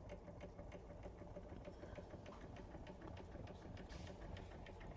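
Doll 387/3 model steam engine running slowly on steam: a faint, steady, rhythmic ticking from its small lightweight mechanism.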